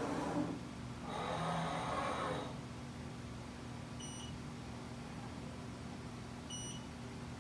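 Mitutoyo Bright 916 coordinate measuring machine's axis drives whirring in two short runs as the probe head moves, over a steady low hum. Then come two short high beeps about two and a half seconds apart as the Renishaw TP2 touch-trigger probe touches the reference sphere, each beep marking a registered touch point.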